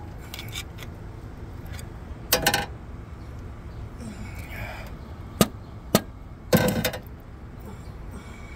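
Several sharp knocks over a steady low rumble: a quick cluster about two seconds in, two single hits around five and a half and six seconds, and a short rattle of knocks soon after.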